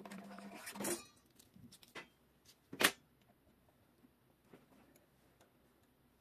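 Workshop handling noises: a rustling scrape that builds and stops suddenly about a second in, then a small click and a louder sharp click, as a small tool or part is handled.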